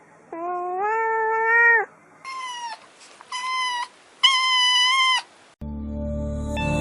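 A domestic cat meowing four times: one long meow, then three shorter, higher-pitched ones. Background music comes in near the end.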